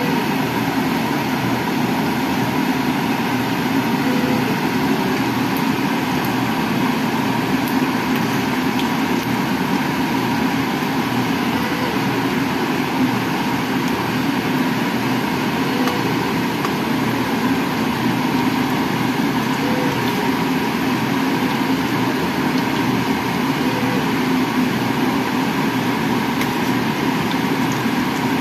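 Egg batter and a chicken cutlet sizzling steadily in hot oil in a nonstick wok, while a metal spoon works the frying batter.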